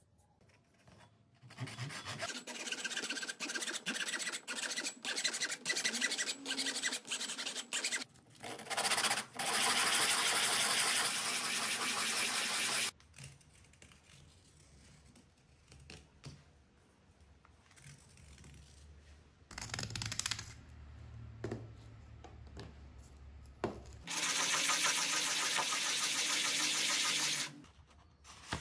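A 32 mm PVC pipe being scraped and rubbed by hand: quick scraping strokes for several seconds, then a few seconds of steady rubbing, and after a quieter stretch of handling, a second spell of steady rubbing.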